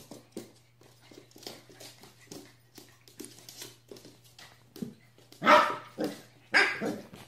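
Corgi puppy giving two loud barks about a second apart near the end, after a stretch of faint tapping and scuffling of paws and ball on a wooden floor.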